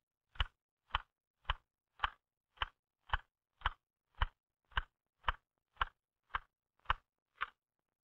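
L.C. Smith manual typewriter keys struck one at a time in a slow, even rhythm, about two sharp clacks a second: a slow keystroking drill.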